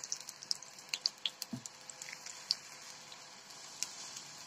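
Ghee crackling and spitting in the hot cavities of a cast-iron paddu pan, as sharp scattered pops that thin out after about the first second. There is a single soft knock about a second and a half in.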